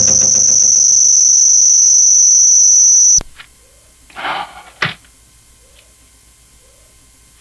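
A single steady, very high-pitched tone from a Yamaha DD-65 digital drum pad, held for about three seconds and then cut off suddenly. A brief rustle and a click follow about a second later.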